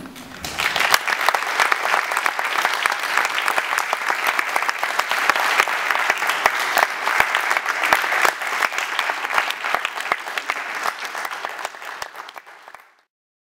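Audience, mostly schoolchildren, applauding: many hands clapping together in a steady, dense patter. It dies down and cuts off suddenly near the end.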